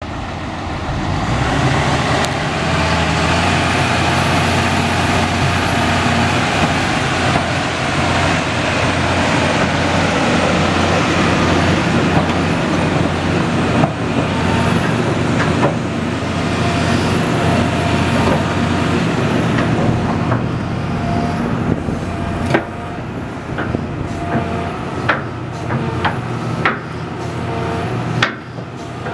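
Hitachi Zaxis 350 excavator's newly replaced Isuzu diesel engine idling steadily, with a faint wavering high whine above it. After about twenty seconds the engine sound eases and a string of sharp clicks and knocks follows.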